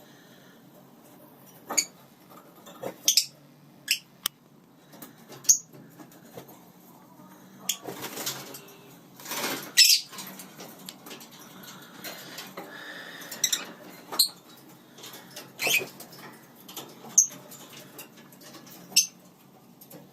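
Lineolated parakeets giving short, scattered chirps amid light clinks and knocks, with a longer burst of rustling about halfway through.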